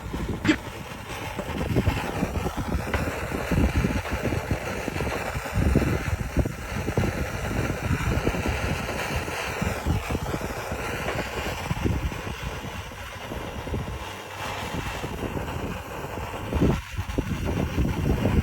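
Strong wind gusting across the microphone, with a steady hiss underneath.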